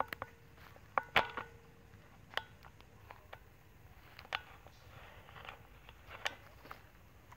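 Irregular light taps and clicks, about a dozen, several leaving a short ringing tone; the loudest comes about a second in.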